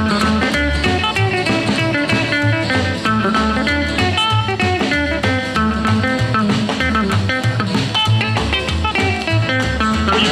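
1950s rock and roll instrumental break: a lead guitar solo of quick, repeated licks over a steady walking bass and drums, with no singing.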